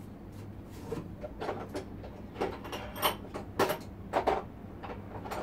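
A run of short knocks and scrapes, about two a second, as things are handled in and around a large cardboard box. The strongest come near three seconds in and again at three and a half.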